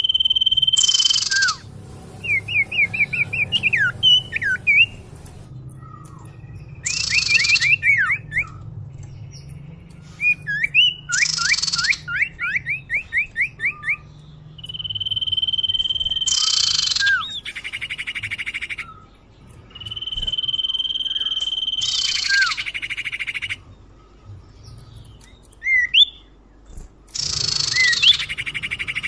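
Common iora (cipoh) calls used as a lure. The phrases repeat: long, steady whistled notes, quick runs of rising chip notes and short harsh chattering notes.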